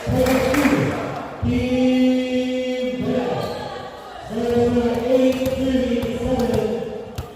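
Crowd of voices chanting in unison, in three long drawn-out calls.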